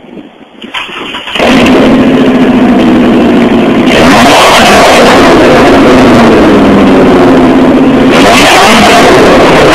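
Chevrolet Colorado pickup's cat-back exhaust with no muffler, very loud: the engine comes on suddenly about a second in, then is revved, getting louder and brighter at about four and eight seconds in.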